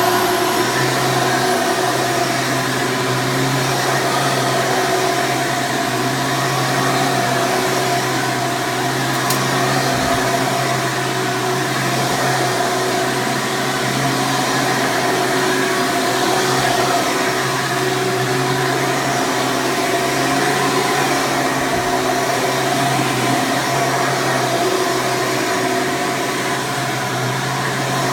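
Hoover Preferred (Elite) U5093-940 upright vacuum running steadily on its 12-amp motor: a loud, even rush of air with a steady whine over it, pretty noisy.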